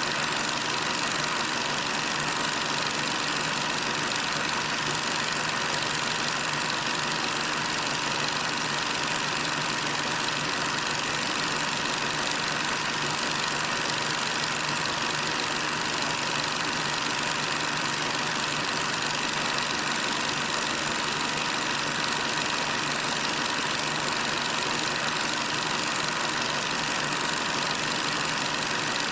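Steady, unchanging engine noise of a column of tanks driving past, with no rise or fall as vehicles pass.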